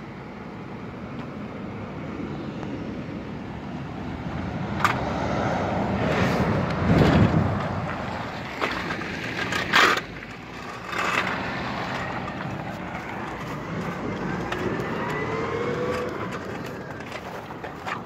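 A road vehicle drives past, its engine and tyre noise swelling to a peak about seven seconds in and then fading away. There are a few sharp knocks along the way, and a faint rising whine near the end.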